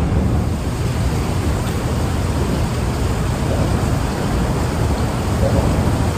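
Steady rushing noise, heaviest in the low end, of wind blowing on the microphone.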